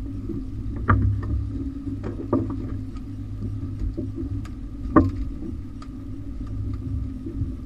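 Outboard motor running steadily at trolling speed, with a few sharp knocks and clatters from the landing net and a freshly caught salmon on the boat's deck. The loudest knock comes about five seconds in.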